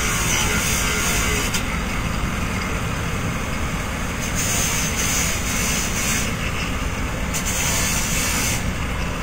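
Handheld power grinder running continuously against the car's sheet-metal body. The grinding turns harsher in several stretches in the second half as the disc bites harder.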